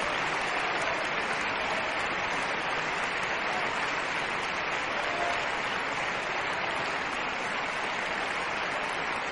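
Large audience applauding steadily, a dense even clapping that fills the hall.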